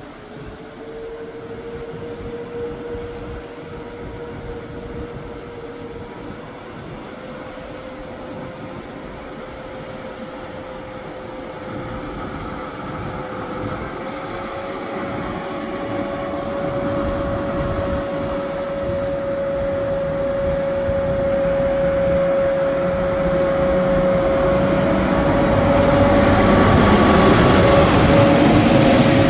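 EP09 electric locomotive pulling away and drawing near, its steady electric whine stepping up slightly in pitch a few times as it accelerates and growing steadily louder, with the rumble of the train rising near the end. Heavy rain hisses throughout.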